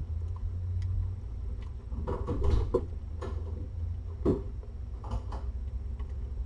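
Mother cat and newborn kittens shifting while nursing on a fleece blanket: soft rustles and small clicks over a steady low hum. The rustles are loudest about two to three seconds in and again just after four seconds.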